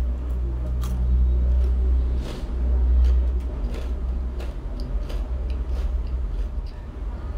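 Close-miked chewing of crispy fried rice cake with the mouth closed: scattered sharp crunches over a loud, deep rumble that is strongest in the first three seconds.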